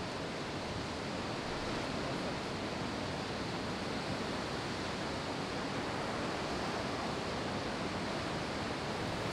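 Steady, unbroken rush of ocean surf.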